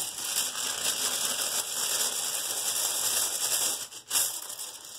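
Plastic kite winder spinning on bearings made of airsoft BBs, the BBs rattling in a fast, continuous ticking whir. The bearing is worn in after lots of use and runs smoothly. The sound drops out briefly just before four seconds in, then picks straight up again as it is cranked.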